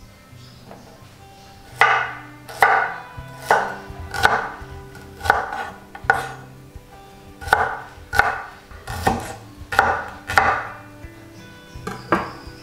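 Knife chopping on a cutting board: about a dozen separate strokes, a little under one a second.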